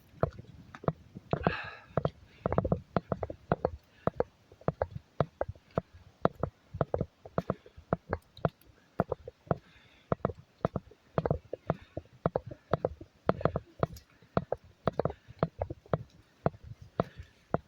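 Footsteps of a hiker walking at a steady, brisk pace on a trail, a regular series of short knocks, with a brief higher sound about a second and a half in.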